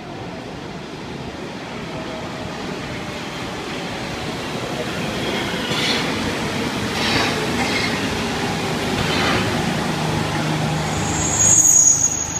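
MPM 76 rubber-tyred metro train pulling into an underground station, its running noise growing steadily louder as it approaches and runs along the platform. There is a brief high-pitched squeal near the end, the loudest moment.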